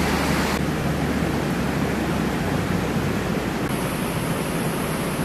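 Shallow mountain creek water rushing steadily over stones, an even hiss that turns duller about half a second in.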